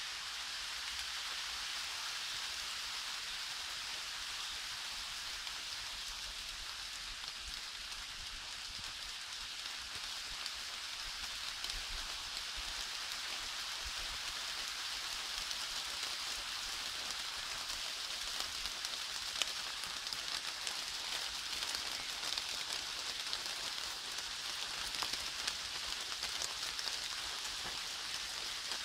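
Steady rain falling on forest foliage: an even hiss of drops, with more single drop ticks standing out in the second half.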